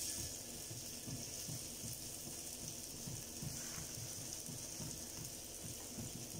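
Raw banana and sago cutlets shallow-frying in hot oil on a flat pan, with a faint, steady sizzling hiss.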